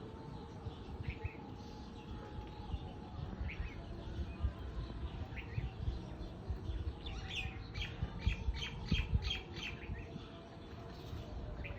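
Birds calling: a few single short chirps, then a quick run of about eight repeated notes in the middle, over a low rumble.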